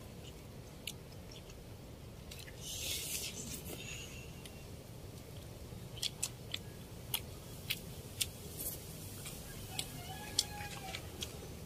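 Eating by hand: blue swimming crab (alimasag) shells cracking and being picked apart, giving scattered sharp cracks and clicks that come more often in the second half, with chewing.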